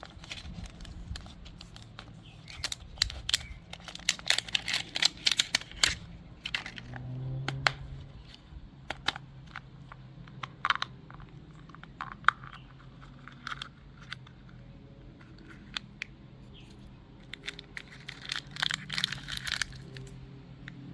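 Plastic candy wrapper crinkling and tearing as it is handled and opened, in two clusters of sharp crackles: one a few seconds in and another near the end.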